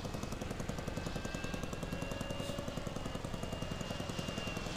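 Model airplane engine idling, an even rapid popping of about ten beats a second, with a thin steady whine above it.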